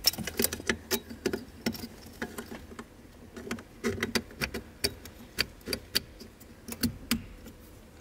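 Irregular sharp clicks and light rattling of a plastic brake pedal switch being pushed into its bracket and twisted to lock, with soft knocks and rustling from hands working around the pedal.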